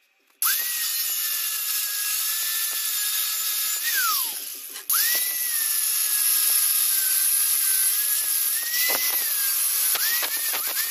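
Angle grinder cutting into a metal motorcycle swingarm: the motor starts suddenly with a high steady whine over the hiss of the disc on metal. About four seconds in it winds down, falling in pitch, then is started again and keeps cutting, its pitch dipping briefly a few times under load near the end.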